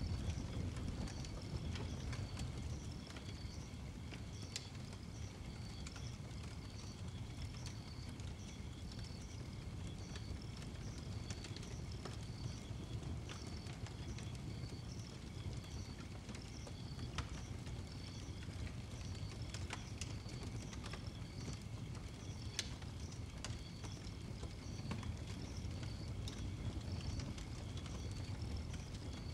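Wood fire burning inside a steel oil-drum fire barrel: a steady low rumble with scattered crackles and pops. A repeated high chirping goes on in the background.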